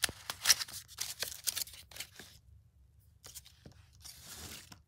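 Cardboard packaging and wrapping handled and pulled apart by hand: a quick run of crackling scrapes and rustles for about two seconds, a pause, a few small knocks, then another short rustle near the end.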